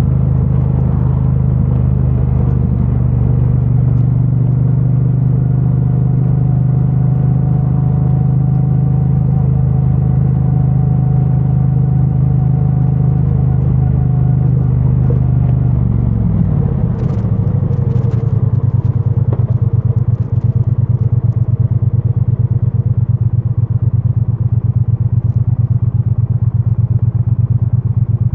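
2022 Triumph Bonneville T100's 900 cc parallel-twin engine on its stock exhaust, running at a steady speed, then dropping in revs about two-thirds of the way in and settling into an even, low pulsing beat like an idle. The sound is muffled, heard from a microphone inside a backpack.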